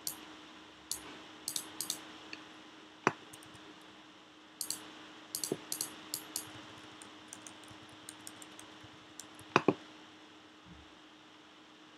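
Irregular light clicks and taps of computer input, a pen or mouse working the interface, some in quick clusters, with a sharper click about three seconds in and a quick louder pair near the end. A faint steady hum runs underneath.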